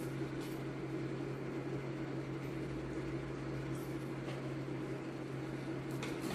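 A steady low mechanical hum, with a few faint soft crunches of chewing.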